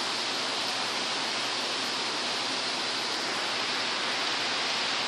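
Heavy rain falling, a steady even hiss of downpour.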